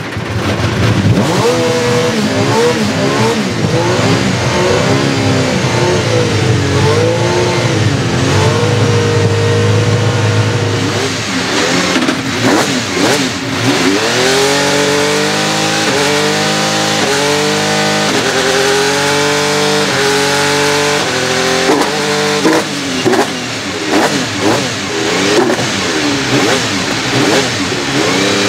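The 1996 Alfa Romeo 155 V6 Ti DTM's 2.5 L V6 racing engine, with individual intake trumpets, running at its warm-up. For the first ten seconds the revs waver and then hold steady. After that the throttle is blipped over and over, about once a second, each rev rising and falling quickly, with sharp cracks among the blips near the end.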